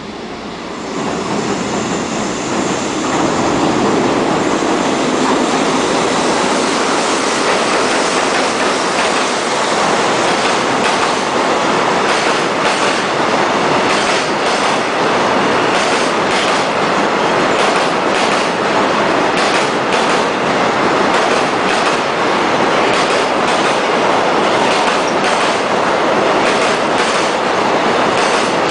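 A JR Freight container train hauled by an EF65 electric locomotive passing: a rumble that builds over the first few seconds, then a steady rush of passing wagons with repeated wheel clacks over the rail joints.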